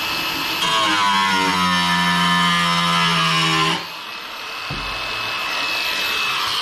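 A power tool's motor running with a steady pitched hum, cutting off abruptly about four seconds in, then a machine running up again near the end.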